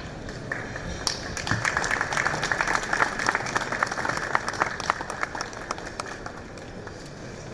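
Audience applauding, the clapping starting about a second in, peaking in the middle and dying away near the end.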